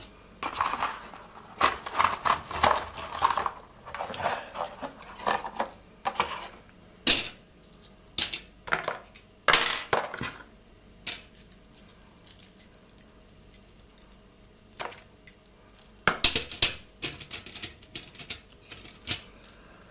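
Metal slingshot fishing darts and their tin case clinking and rattling as they are handled: short sharp metallic clicks in clusters, sparser for a few seconds in the middle.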